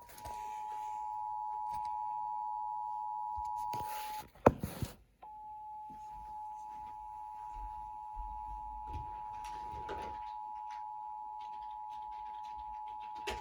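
Emergency Alert System attention signal: the steady two-tone alert (853 and 960 Hz together) from a radio broadcast. About four seconds in it breaks off with a loud click and a short gap, then sounds again.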